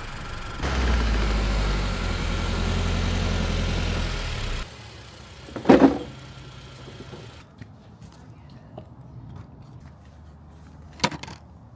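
Car engine running, then switched off about five seconds in. A thud follows a second later, and a sharp click comes near the end.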